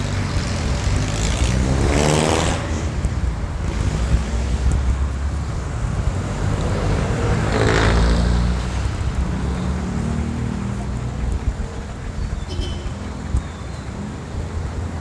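Street traffic rumbling steadily, with two vehicles passing close by, about two seconds in and again about eight seconds in. Each engine note falls in pitch as it goes past.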